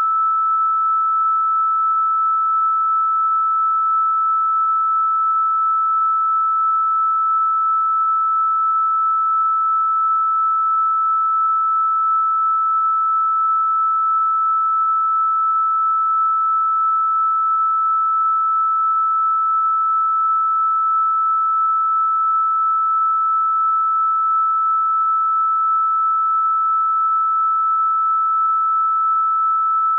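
A single pure electronic sine tone held at one unchanging pitch, fairly high, with no music or other sound: a steady healing-frequency tone.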